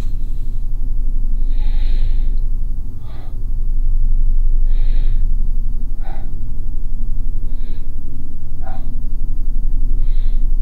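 A man's loud, sharp breaths, about seven at irregular spacing, over a steady deep hum.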